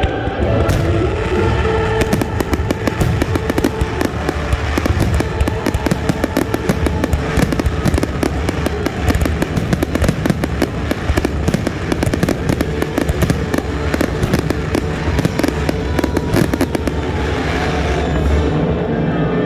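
Fireworks going off in a rapid, dense barrage of bangs and crackles, many per second, over background music.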